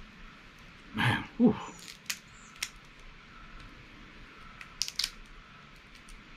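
Steamed blue crab shell cracking and snapping as it is pulled apart by hand: a few sharp clicks, with a quick cluster of louder snaps about five seconds in. About a second in, a brief low two-part grunt-like sound that falls in pitch is the loudest thing heard.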